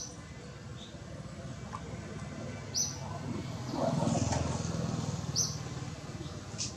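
A bird calling with a short, high chirp about every two and a half seconds, over a steady outdoor background. A low rumble swells and fades around the middle.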